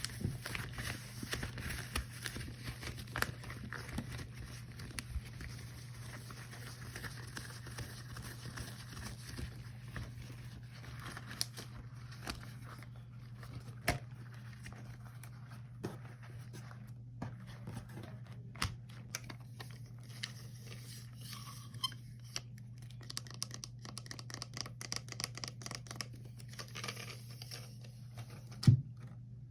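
Rubber gloves handled close to the microphone: sticky crinkling and crackling with scattered sharp snaps, the loudest near the end, over a steady low hum.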